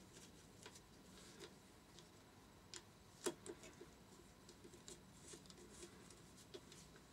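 Faint, scattered clicks and taps of hand tools and small steel bolts being fitted into the engine casing, with one sharper click about three seconds in.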